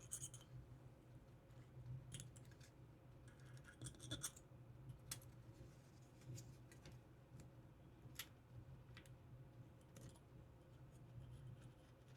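Faint, scattered light clicks and short scratches of small pistol parts being handled while they are oiled, over a low steady hum.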